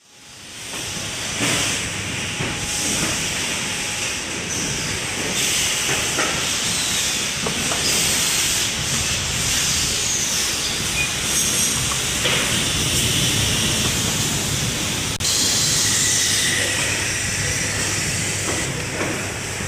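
Assembly-line noise in a power-tool factory: a steady hiss and hum of machinery, with occasional clicks and clatter of parts being handled.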